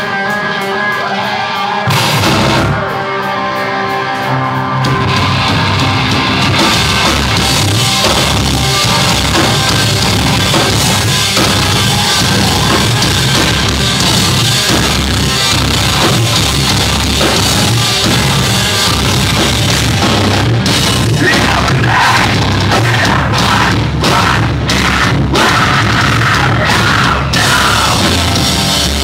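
Heavy metal band playing live at full volume: distorted electric guitar, bass and drum kit. Held guitar chords give way about two seconds in to the whole band crashing in, and a vocalist yells over it in the last third.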